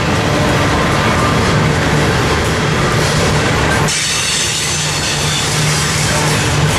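Double-stack intermodal freight train's well cars rolling past on the rails: a steady rumble and rattle of wheels and cars. About four seconds in the sound changes abruptly, the lower rumble thinning and a bright hiss coming up.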